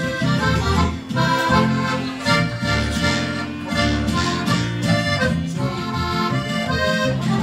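Accordion played live: a melody over sustained bass notes and chords.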